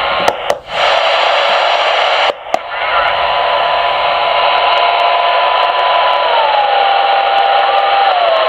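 Superstar 3900 export CB radio receiving an empty sideband channel: steady static hiss from its speaker, broken by a few switch clicks and two short dropouts in the first couple of seconds as the channel is stepped from 38 to 39. About three seconds in, a steady whistle comes up, and its pitch drops twice as the clarifier knob is turned.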